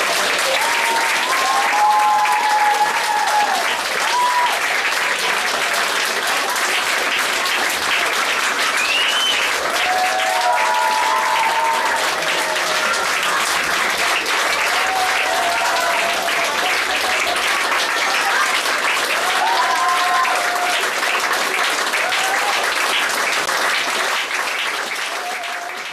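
Audience applauding steadily and continuously, with a few cheering calls over the clapping; the applause eases slightly near the end.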